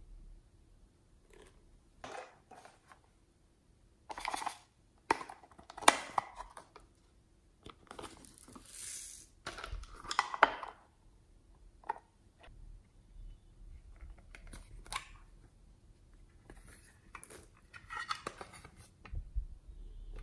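Plastic toppings containers and a plastic packet being handled and opened over a tray of slime: scattered taps, clicks and crinkling. About eight to ten seconds in comes a longer hissing rustle as the packet is worked open and its contents tipped out.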